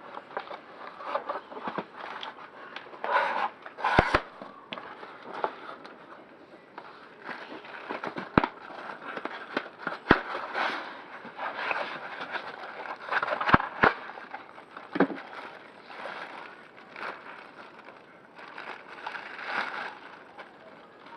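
Packaging being handled while a cordless stick vacuum is unboxed: cardboard and plastic wrapping crinkling and scraping, with sharp clicks and knocks scattered through.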